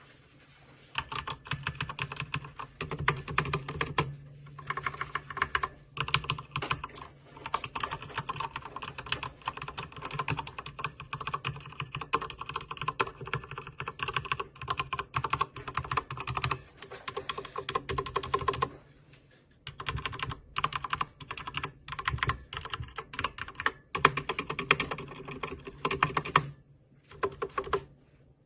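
Typing on a Corsair K70 TKL mechanical keyboard with Cherry MX Silver linear switches: rapid runs of key clacks, broken by a few short pauses.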